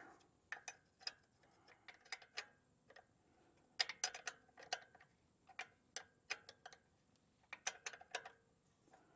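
Faint, irregular metallic clicks of a wrench or ratchet working on mounting bolts as they are tightened, in short clusters of strokes with pauses between.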